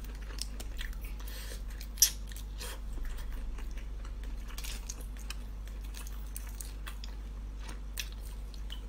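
Cooked shrimp being peeled by hand, the shells crackling and snapping in many small clicks, with one sharper snap about two seconds in; a steady low hum runs underneath.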